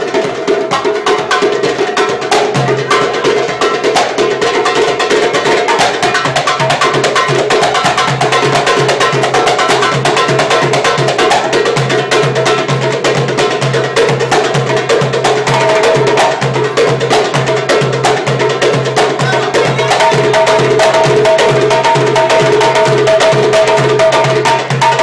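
Street percussion group playing a fast batuque rhythm of dense, quick drum and wood-block-like strikes. A low drum beat comes in strongly about two and a half seconds in.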